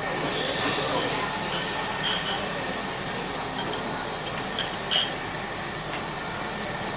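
Several light clinks of utensils against dishes, the sharpest about five seconds in, over a steady hiss.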